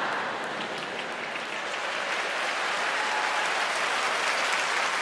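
Live theatre audience applauding steadily in response to a joke, a continuous wash of many hands clapping.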